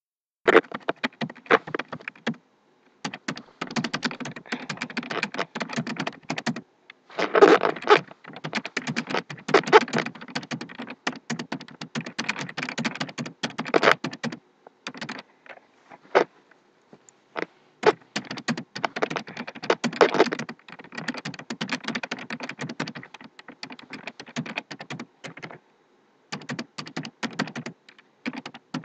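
Typing on a computer keyboard: runs of rapid keystrokes lasting a few seconds each, broken by short pauses, with only a few scattered key clicks about halfway through.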